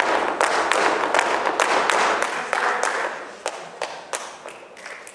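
Audience clapping and applause, with sharp taps mixed in, dying down about three seconds in.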